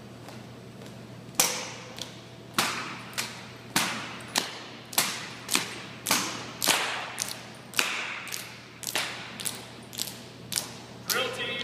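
Navy ceremonial guard drill team's rifle drill: a run of sharp cracks and thuds, nearly two a second, from hands slapping rifles, rifle butts and heels striking a tile floor. The strikes start about a second and a half in and each rings on in a large, echoing hall.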